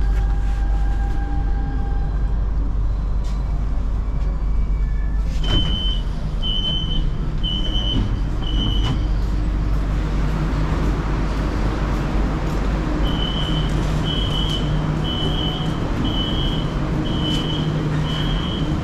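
Buenos Aires Subte train coming to a stop in a station: low rumble and a fading electric whine, then a sharp clunk about five seconds in as the doors open. A high door beep sounds about once a second, four times. Later, over the noise of passengers moving on the platform, a longer run of the same beeps warns that the doors are about to close.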